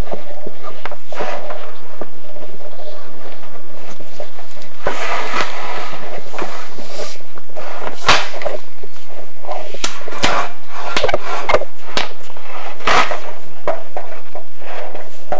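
Rustling and scraping with a run of sharp knocks in the second half, from a chimney inspection camera and its cable being lowered down a clay-tile flue.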